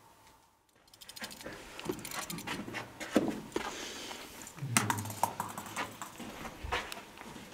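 Handling and movement noise: rustling, scuffing and a quick, uneven run of small clicks and knocks, starting about a second in.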